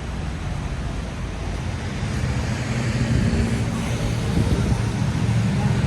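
A road vehicle passing close by on a city street: its low engine hum grows louder from about two seconds in, over steady traffic noise.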